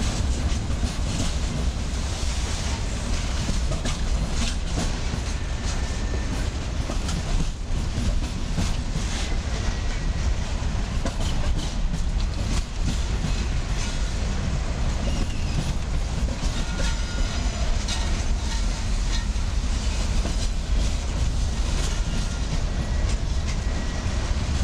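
Freight train of boxcars rolling past: a steady low rumble with the clickety-clack of wheels over rail joints.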